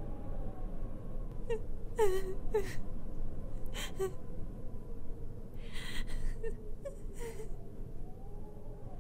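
A girl's voice crying: several short whimpering sobs with falling pitch and a breathy sniffle, over a low steady background rumble.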